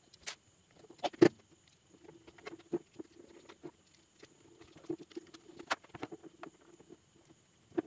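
Rubber strap and end cap of a Sony SRS-XB10 speaker being pulled and pried off with a metal pick: scattered sharp clicks and rubbing scrapes, the loudest click about a second in.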